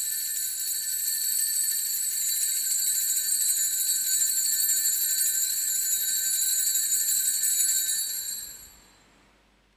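Bells rung for the elevation of the host at the consecration of the Mass: a steady, high, shimmering ringing that starts suddenly, holds for about eight seconds, then fades away.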